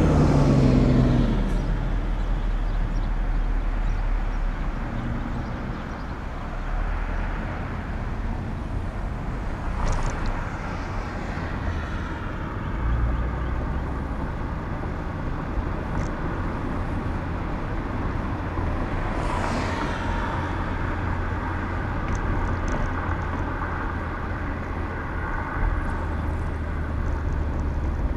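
Road noise of a car driving, recorded from the moving vehicle: steady tyre and engine rumble. An engine sound falls in pitch in the first second or so, and brief whooshes of passing traffic come about ten and about nineteen seconds in.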